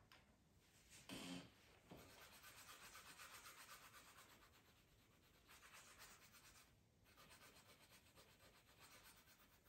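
Faint scratching of a colored pencil shading back and forth on a coloring-book page, in quick even strokes several times a second, with a short pause about seven seconds in. A soft knock comes about a second in, before the shading starts.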